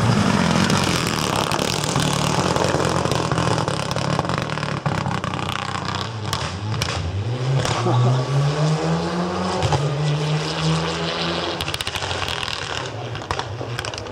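Rally car engine running hard at full throttle on a stage, with the revs climbing through a gear about halfway through and short sharp cracks scattered throughout.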